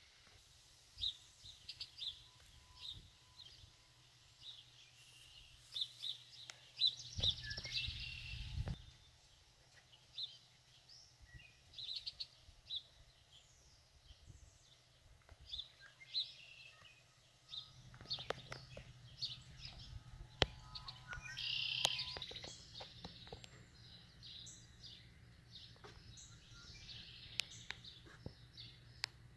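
Small birds chirping and calling, many short high notes scattered throughout, with a brief low rumble about seven seconds in and a faint low hum in the second half.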